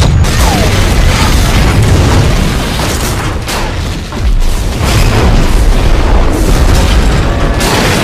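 Loud explosion blasts and rumble, easing briefly about four seconds in and then building again, with a fresh sharp blast near the end.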